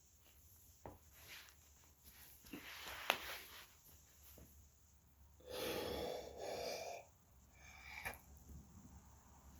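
A person breathing forcefully in and out, several noisy breaths, the loudest pair about halfway through.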